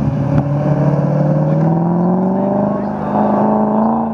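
Two BMW E30 drift cars' engines running hard at high revs in a tandem drift, their pitch climbing steadily for about three seconds and then holding.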